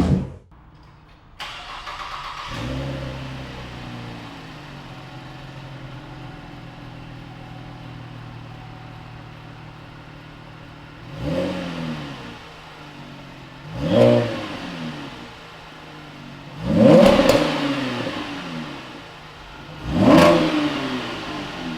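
Chevrolet Camaro 3.6-litre V6 starting up through its exhaust, flaring briefly and settling to a steady idle. It is then blipped four times with the throttle, each rev rising and falling, the third held longest and loudest.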